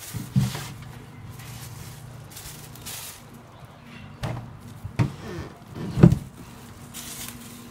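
Chopsticks tossing a shredded pomelo salad in a metal basin: soft rustling of the mixing with a few sharp knocks of the chopsticks against the basin, the loudest about six seconds in.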